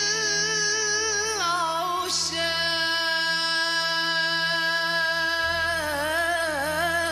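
A young girl singing an Arabic song solo in long held notes that waver with vibrato and turn in ornaments, over a low steady backing drone.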